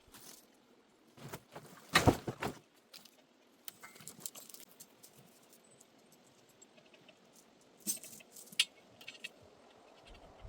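Scattered light knocks and metallic clinks, with the loudest cluster about two seconds in and another near eight seconds.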